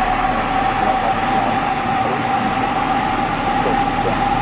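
Box truck in motion: steady loud running noise with a constant whine held at one pitch.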